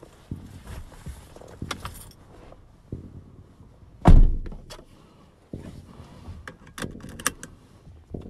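Inside a parked car: one heavy thunk about four seconds in, the sound of a car door shutting, among small clicks and rustles of someone moving in the driver's seat. A few sharp clicks follow near the end.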